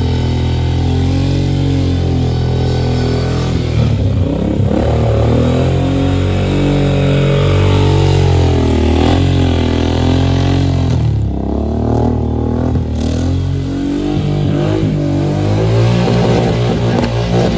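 A vehicle engine runs steadily under way, its pitch dipping and rising a few times as the revs change.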